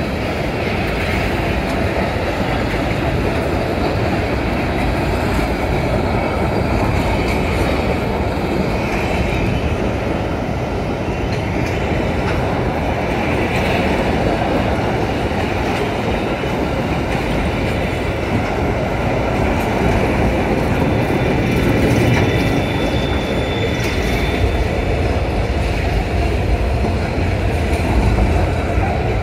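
Freight train's hopper wagons rolling past close by: a steady rumble of steel wheels on rail, with a faint high wheel squeal in places.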